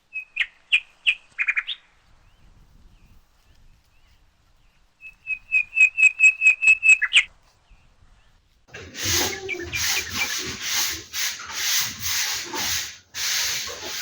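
A small bird chirps in two quick runs of repeated high notes, then, about nine seconds in, rhythmic rough rubbing strokes start, about one or two a second.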